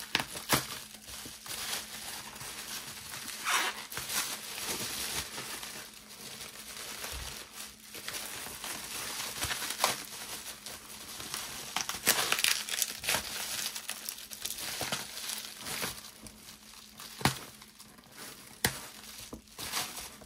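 Plastic bubble wrap crinkling as it is handled, pulled and torn open by hand, with many sharp crackles throughout.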